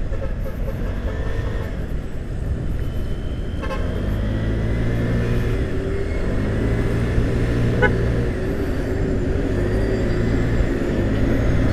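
Vespa S125 scooter's single-cylinder four-stroke engine running under way through traffic, with steady low road and wind rumble. A low, even engine hum settles in about four seconds in.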